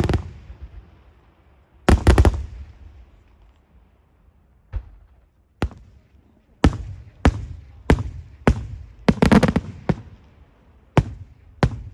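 Daytime fireworks display: shells bursting as sharp bangs, each trailing off in a short echo. A few come singly or in tight clusters, and in the second half they settle into a run of nearly two bangs a second.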